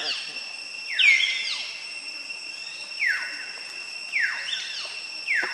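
Baby monkey crying with short, high squeals that fall in pitch, four of them, the loudest about a second in, over a steady high drone of insects.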